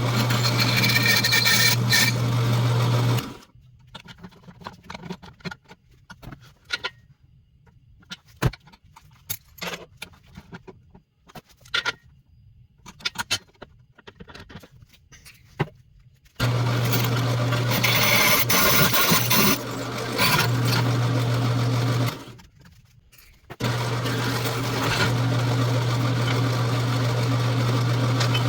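An electric power tool runs with a steady hum in three long bursts: a few seconds at the start, again for about six seconds from around the middle, and again near the end. In the gaps there are scattered light clicks and knocks of metal parts and hand tools.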